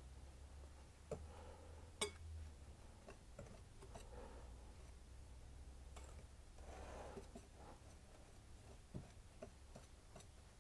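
Whisk stirring dry pastry ingredients (flour, sugar, baking powder and orange zest) in a mixing bowl: faint soft swishes with a few light clicks against the bowl.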